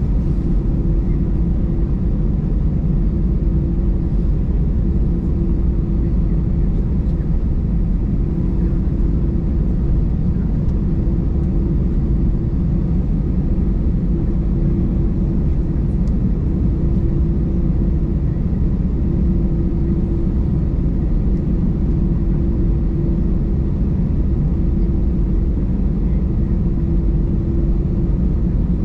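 Airbus A320 cabin noise while taxiing, heard inside over the wing: the jet engines' steady low rumble with a steady hum above it.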